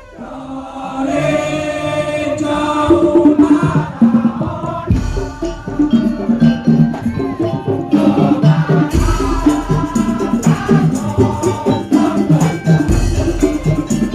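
Madurese tong-tong (ul daul) troupe music: drums and wooden slit-drum percussion beating a dense rhythm under a melody line, with a deep boom about every four seconds. The music comes in just after a brief drop in level at the start.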